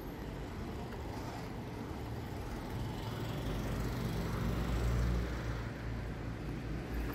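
Street traffic: a car's engine grows louder as it drives past close by, loudest about five seconds in, then fades, over a steady hum of road noise.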